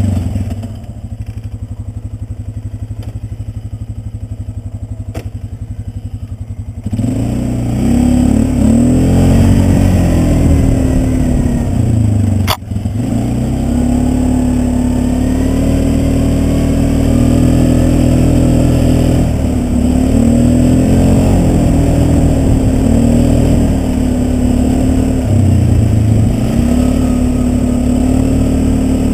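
Polaris Sportsman 400 ATV engine under the rider, throttled back and running steadily for the first several seconds. About seven seconds in the throttle opens and it gets louder, its pitch rising and falling with the throttle. A single sharp knock comes about halfway through.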